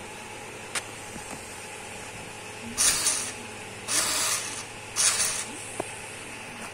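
Small electric drive motors of a cardboard Arduino Nano RC car run in three short bursts of hissing, grinding noise, about half a second each, driven from a phone app while the wheels spin free off the ground. There is a sharp click shortly before the bursts and another just after them.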